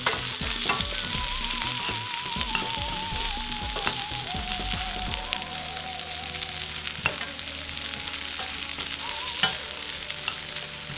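Sliced bell peppers, carrots and snow peas sizzling in hot oil in a nonstick frying pan as they are stir-fried with a wooden spoon. The spoon gives a few sharp knocks against the pan.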